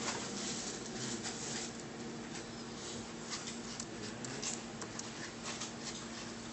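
Handling noise: light scratchy rustles and small irregular clicks from hands on the camera and the laptop, over a faint steady low hum.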